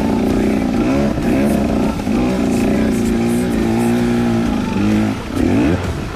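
Two-stroke Husqvarna TE150 dirt bike engine revving in repeated blips of throttle, the pitch rising and falling again and again, with a steadier held stretch of revs in the middle and a last quick rev-up near the end.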